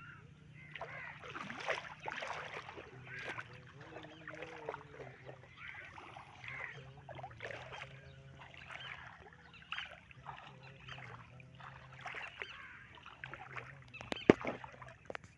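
Flood water splashing and sloshing in irregular strokes over a steady low hum, with faint distant voices and one sharp knock near the end.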